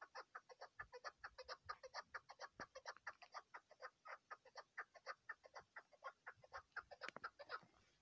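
Chukar partridge calling: a fast, even run of short chuck notes, about six a second, that stops shortly before the end.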